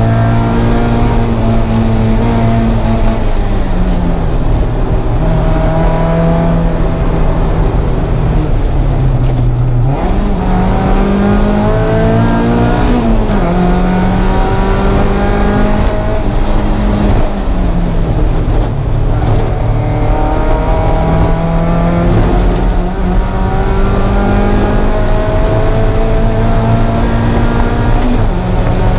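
1994 Mazda Miata's four-cylinder engine at track pace. The revs climb under acceleration and drop sharply at each gear change or braking point, several times over, with quick throttle blips around ten and thirteen seconds in, over heavy road and wind rumble.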